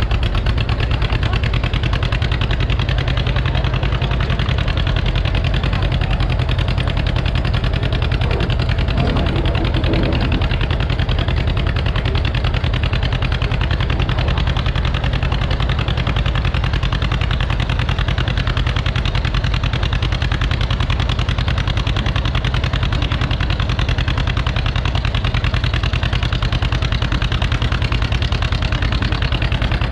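Engine idling steadily and loudly, holding an even speed with no revving.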